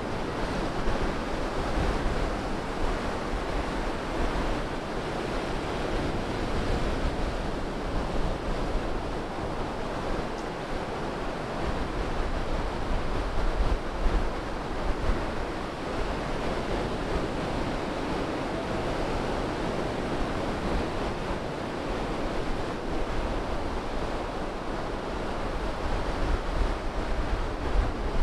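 Ocean surf breaking and washing up the sand, with wind rumbling on the microphone that gusts a little stronger near the end.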